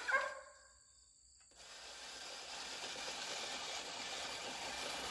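Push reel lawnmower's spinning blade reel whirring and clipping as it is pushed through thick grass, starting about a second and a half in and growing steadily louder. A brief squeak right at the start.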